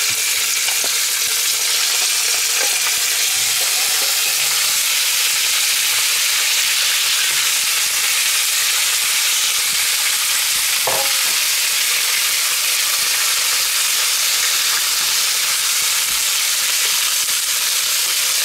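Cubes of raw pork sizzling steadily as they sear in a hot Petromax FT9 cast-iron Dutch oven, stirred with a wooden spatula. A few knocks come as the meat is tipped in, and there is a short clink about eleven seconds in.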